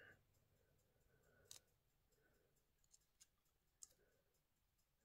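Near silence, broken by four faint, sharp clicks of steel watchmaker's tweezers handling small watch parts while the escape wheel is being fitted into a watch movement.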